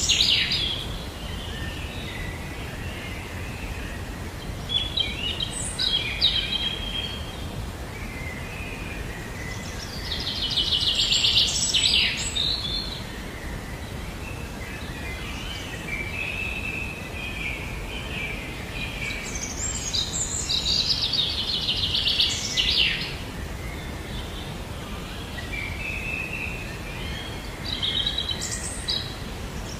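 Birds singing: a rapid, high trilling phrase comes back about every ten seconds, with scattered shorter chirps between, over a steady low background noise.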